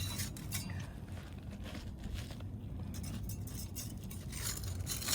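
Thin steel putty knife scraping and ticking under asphalt shingles as their seal strips are broken loose; the shingles are wind-damaged and already largely unsealed. A run of small irregular scrapes and clicks over a steady low rumble.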